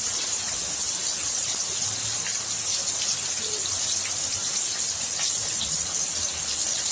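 Rain pouring down steadily in a continuous hiss of falling water.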